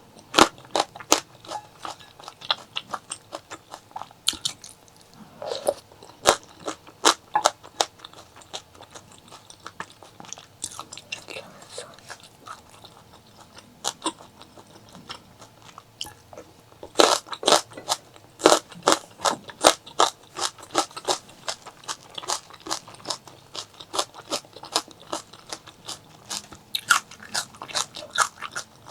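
Close-miked eating sounds: a person biting and chewing food, with many sharp wet crunches and clicks in irregular bouts, busiest a little past the middle.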